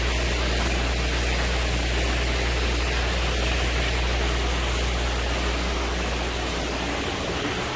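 Steady rushing air noise with a low hum underneath, typical of the fans in a heated glasshouse; the low hum falls away about seven seconds in.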